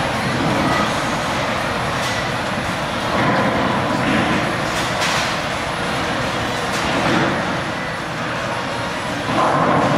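Bowling alley din: the steady rumble of balls rolling down the lanes, with the sharp crash of pins being hit on nearby lanes several times.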